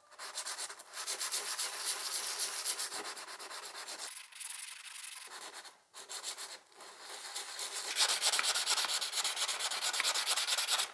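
Quartzite stone rubbed by hand on fine-grit sandpaper: quick back-and-forth scraping strokes, with a few short pauses and a quieter stretch about four seconds in.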